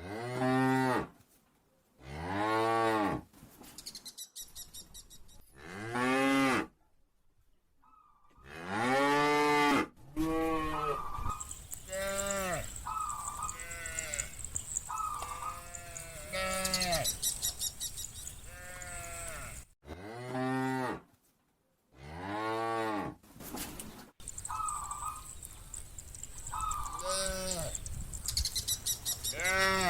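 A herd of cows mooing, one long call after another, each rising and then falling in pitch. From about a third of the way in, several cows call over one another with shorter, higher moos.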